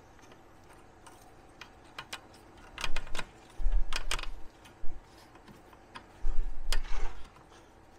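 Scattered light clicks and taps of hands working a rubber breather hose onto a plastic cowl intake tube, with a couple of dull low rumbles.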